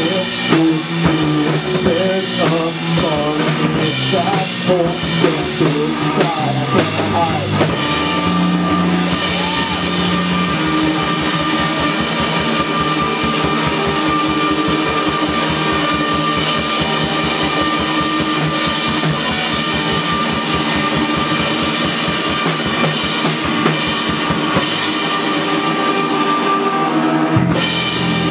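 Live rock band with distorted electric guitars and a drum kit playing loudly. For the first several seconds the notes bend and waver over busy drumming; then the guitars hold a thick, sustained wall of sound with the drums pounding underneath.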